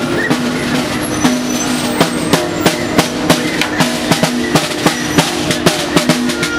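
Picket-line din: fast, irregular drumbeats over long, steady low honking tones and street traffic.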